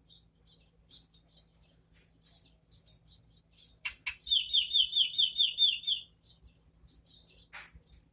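Pet birds chirping softly. About four seconds in there are two sharp clicks, followed by a loud run of about eight quick, repeated chirps lasting nearly two seconds.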